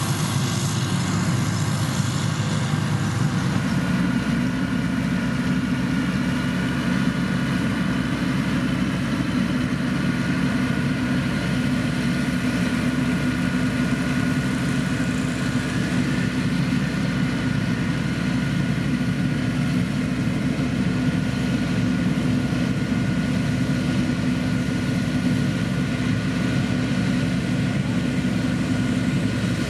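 Heavy diesel construction machine's engine running steadily, with its low rumble growing fuller about three and a half seconds in.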